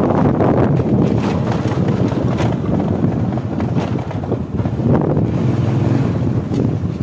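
Wind buffeting the microphone of a moving motorbike: a loud, steady, rough rumble, with the bike running beneath it.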